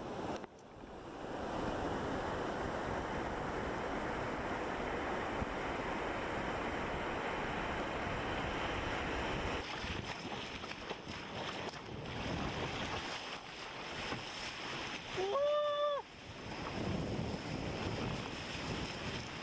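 Breaking surf and whitewater rushing around a sea kayak, with wind buffeting the camera microphone. About three-quarters of the way through, a short high-pitched shout rises above the surf.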